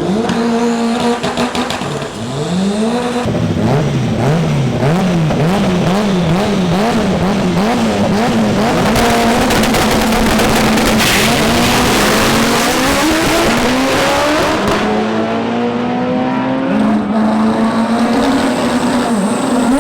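Drag race car engine revving up and down in quick repeated pulses for several seconds, then running hard with its pitch climbing through gear changes.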